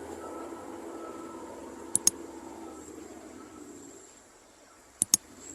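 A small motor running with a steady hum that fades out a little before four seconds in. Two pairs of sharp clicks come about two seconds in and again about five seconds in.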